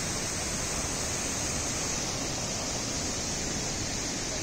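Waterfall and rapids pouring over boulders: a steady rush of white water.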